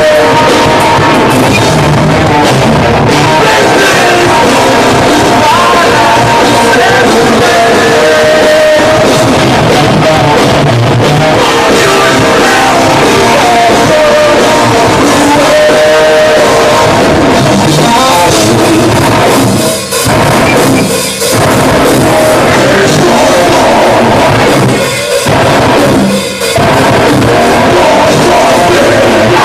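Metalcore band playing live and very loud, with distorted electric guitars, drum kit and vocals. The music cuts out briefly for stop-start hits a few times in the second half.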